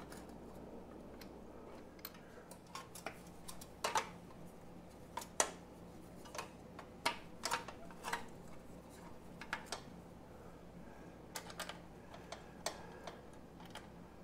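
Irregular light clicks and taps of a motorcycle skid plate being handled and offered up under the bike, knocking against its mounts and fasteners as it is fitted back on.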